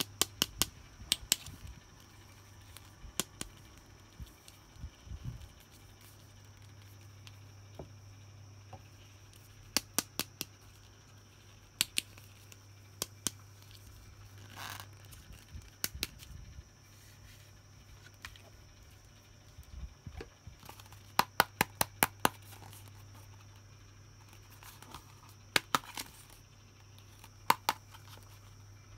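Small plastic toy pieces and packaging being handled for an unboxing: scattered sharp clicks and taps, several in quick runs of three to six, with a softer rustle about halfway through, over a faint steady hum.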